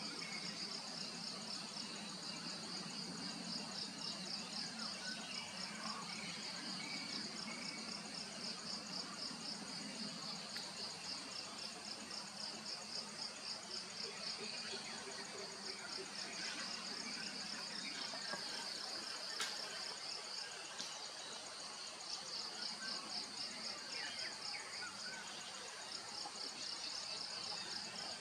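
Insects calling in the forest: a fast, pulsing chirp that stops and starts every few seconds over a steadier high-pitched drone, with an occasional faint bird call.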